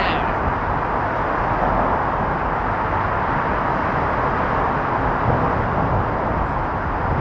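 Steady, even roar of traffic mixed with wind noise on the microphone, with no distinct events.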